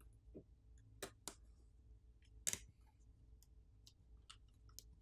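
Faint, scattered small clicks and ticks of a screwdriver and tiny parts being handled as the phone's Phillips screws are taken out, with one sharper click about two and a half seconds in.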